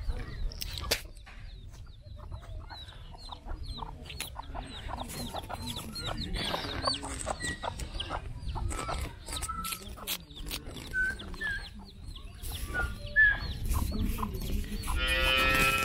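Free-range chickens clucking as they forage, with many short high calls throughout and one longer, louder call near the end.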